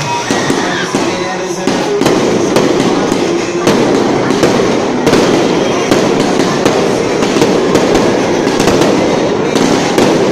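Fireworks going off in rapid succession: a loud, continuous crackle and hiss studded with many sharp bangs.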